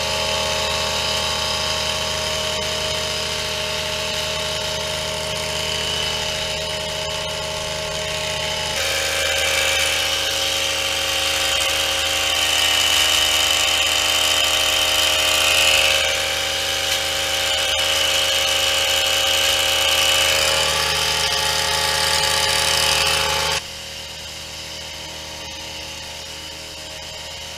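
Long-reach pole hedge trimmer running steadily while cutting a conifer hedge. Its note changes about nine seconds in, then drops abruptly to a quieter level near the end.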